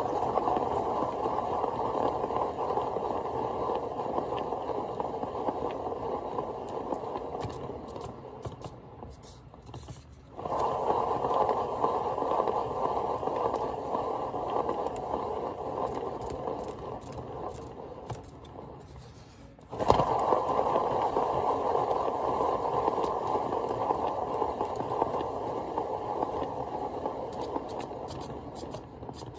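Paint spinner turning a small canvas inside a hard plastic spinner box, whirring and fading as it slows. It is spun up again twice, about ten and twenty seconds in, with a knock at the second restart.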